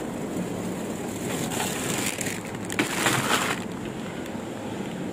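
Plastic bags of frozen crinkle-cut fries crinkling and rustling as they are picked up and handled. The crinkling starts about a second in and lasts about two seconds, with one sharp crackle in the middle.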